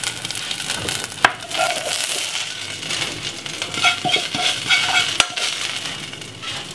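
Hot fat sizzling in a frying pan while burned bits of seasoning are scraped out of it, with two sharp metal clinks.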